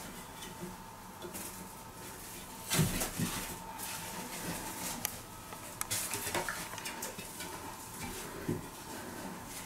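A raccoon and a cat scrabbling on a wooden wall-bar ladder and shelf: scattered knocks and scratches of claws and paws on the wooden rungs. The loudest knocks come a little under three seconds in, with another cluster around six seconds.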